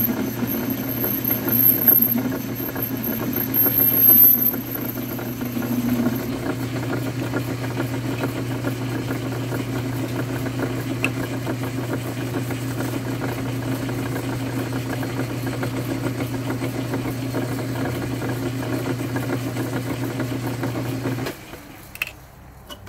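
Metal lathe running with its chuck spinning, a carbide-tipped tool taking a light cut on a metal cap through the first few seconds with a thin high whine. The steady motor hum cuts off about 21 seconds in as the lathe is switched off and coasts.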